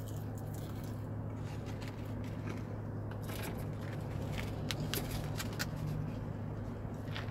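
Steady low hum of a parked car's idling engine and air conditioning, with the sounds of someone eating French fries. A few quick sharp crackles come in the middle.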